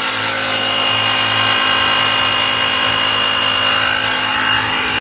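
Air compressor of a 12-volt 4-in-1 car vacuum and tyre inflator running steadily while inflating a car tyre: a constant motor hum with a steady high whine.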